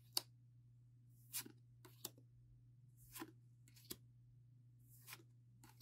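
Faint handling of a stack of Pokémon trading cards: about eight short, soft swishes and taps, roughly a second apart, as cards are slid one at a time from the front of the stack to the back. A faint steady low hum sits underneath.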